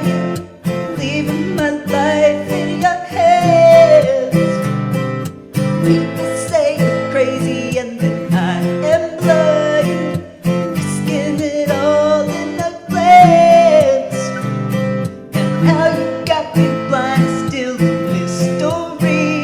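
Solo male voice singing a pop ballad cover over a karaoke backing track with guitar. The voice is a trans man's, still changing on testosterone.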